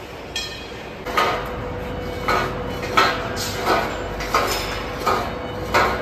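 Steel being struck by a hammer: about eight ringing metallic clanks, most about 0.7 s apart, over a steady machine hum.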